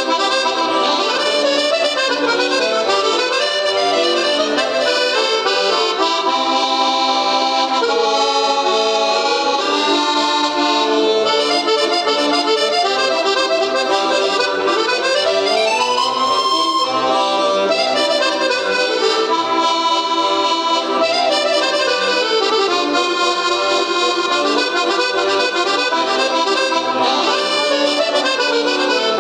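Piano accordion playing a French waltz melody, with quick runs up and down the keyboard about halfway through.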